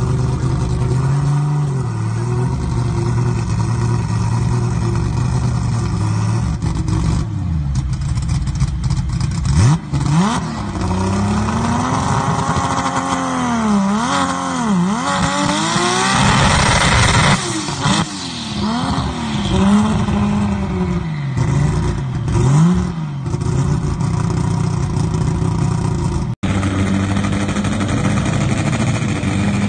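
A drag car's engine idles, is revved up and down several times in quick succession, then settles back to a steady idle. A brief dropout comes near the end.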